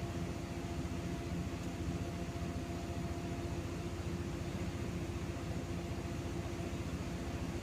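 Cosmos 56-CBA 140 cm industrial ceiling fan running steadily: an even motor hum with air rush from the blades.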